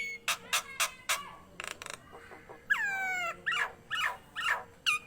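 Nias hill myna calling: a quick run of sharp clicks, a harsh burst, then about halfway through a long falling whistle followed by a string of short rising-and-falling whistled notes.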